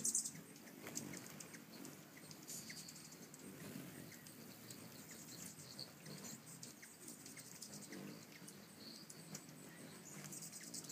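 A swarm of hummingbirds at a nectar feeder: the low hum of many wingbeats with frequent high, rapid chip notes and squeaky chatter, a brief louder burst of squeaking at the very start.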